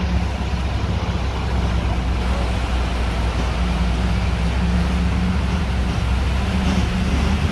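Motor vehicle's engine running steadily with a low hum, heard from inside the cabin while driving through floodwater.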